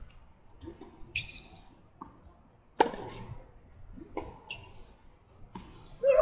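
Tennis balls struck by rackets in a doubles rally: several sharp pops, the loudest about three seconds in. Short shoe squeaks on the hard court come in between, and a brief louder sound comes near the end.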